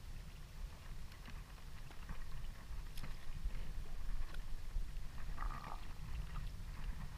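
Steady low rumble of a small fishing boat rocking at sea, with a few faint clicks of handling.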